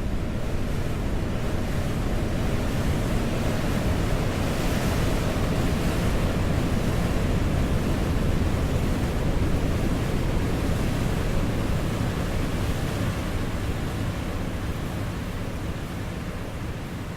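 Processed beach recording of wind and surf: a continuous rushing noise that swells about five seconds in and then fades gradually toward the end.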